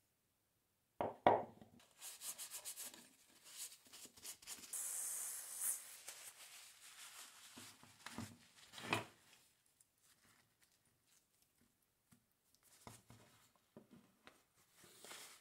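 Cloth rag rubbing and wiping the greasy metal parts of an old hand drill, in irregular strokes. There are a couple of short knocks as parts are picked up and set down.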